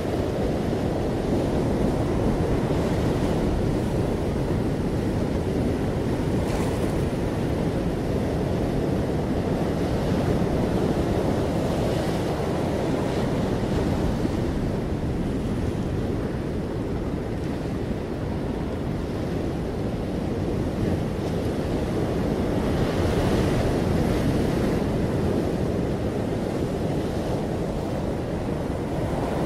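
Ocean surf breaking and washing up a sandy beach among rocks: a steady rush of waves that swells a little louder every few seconds.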